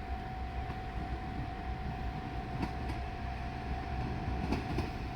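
Diesel railcar running, a low steady engine rumble with a steady high-pitched tone over it, and a few sharp clicks in the second half.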